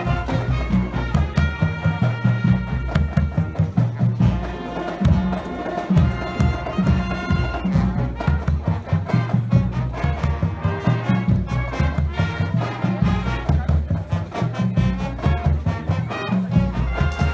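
Live brass band playing an upbeat tune, horns carrying the melody over a steady, pulsing bass line.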